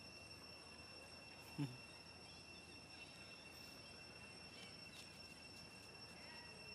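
Near-silent outdoor ambience with a faint, steady, high-pitched insect drone, and one short low thump about a second and a half in.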